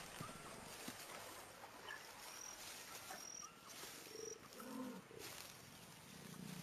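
A jaguar gives two faint low growls, the second near the end, over quiet wild ambience with a few short high bird chirps.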